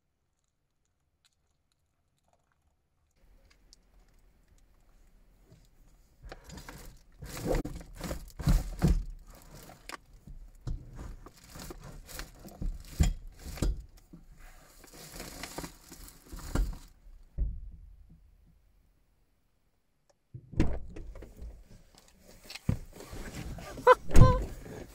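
A wheelbarrow being forced into a car's back seat, starting about six seconds in: a run of knocks and thumps with scraping and the rustle of plastic bags. After a short quiet spell, more thumps as a person climbs into the car near the end.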